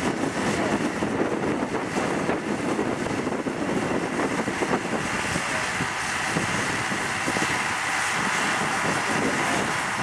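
John Deere tractor's diesel engine running steadily under load as it pulls a four-furrow plough through the soil.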